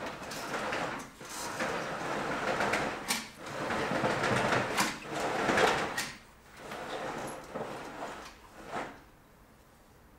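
Heavy curtains being handled and drawn along their rail: fabric rustling and sliding in several swells, with a few light clicks.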